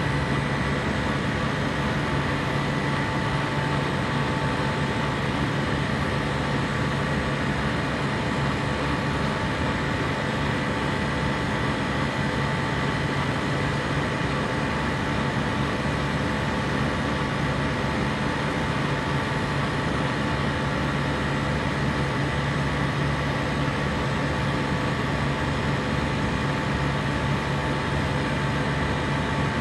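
A compressor running continuously: a steady hum and a few constant higher tones over an even hiss, with no change in level or pitch.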